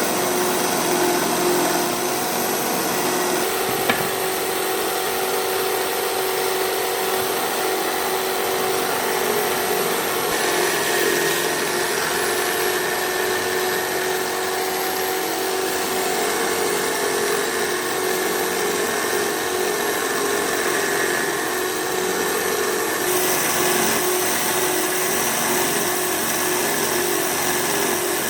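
An electric power tool running steadily against wood, with a continuous motor hum under a rubbing, abrasive noise that shifts slightly in tone a few times.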